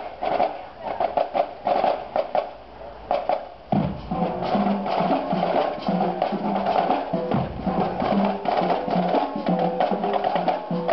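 High school marching band playing as it approaches: sharp drum clicks and hits in a steady rhythm, becoming louder and fuller about four seconds in, with pitched instruments sounding along with the drums.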